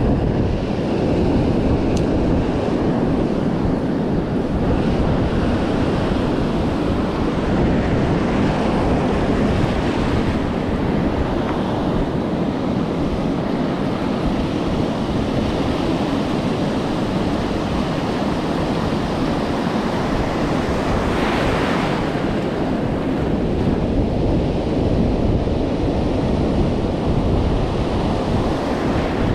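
Ocean surf breaking and washing up a sandy beach, a steady roar with wind buffeting the microphone. The hiss swells briefly a little past two-thirds of the way through.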